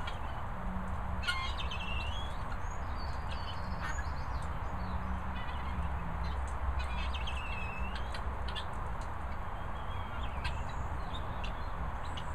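Guinea fowl keets chirping in short bouts of rapid, high calls every second or two, over a steady low rumble.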